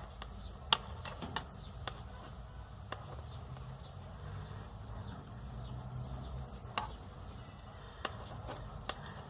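Two knitting needles clicking against each other now and then as stitches are knitted, a handful of sharp irregular clicks over a low steady rumble.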